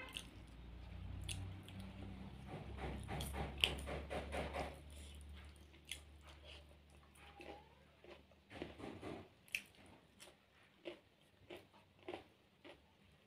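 A person eating rice and curry by hand, close to the microphone: chewing with wet smacks, squishes and small mouth clicks, quickest about three to five seconds in. A low hum sits underneath and stops about two-thirds of the way through.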